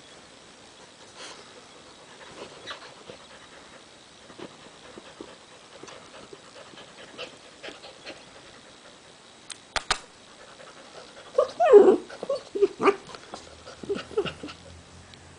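A puppy playing with a squeaky rubber duck toy: soft scattered taps, two sharp clicks a little before ten seconds in, then a quick flurry of loud squeaks around twelve to thirteen seconds in, with a few weaker ones after.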